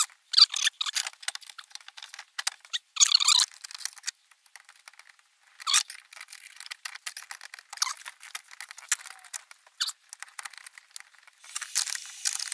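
Insulated wires being pushed and bent into place inside a metal solar combiner box: irregular short scrapes and clicks of the wires rubbing on each other and on the box, in bunches, louder about three seconds in and again near six and ten seconds.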